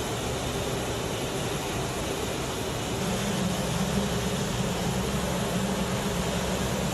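Aircraft engines running, a steady dense drone; about three seconds in it grows a little louder and a low hum comes in.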